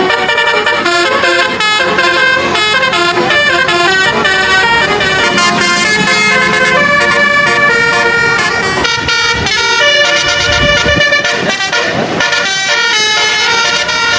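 Bus telolet horns, multi-trumpet air horns, playing a fast tune of several notes at once that change pitch every fraction of a second, without a break.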